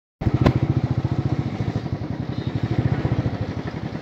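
Motorcycle engine running at low revs with an even, rapid beat, cutting in suddenly with a sharp click just after the start.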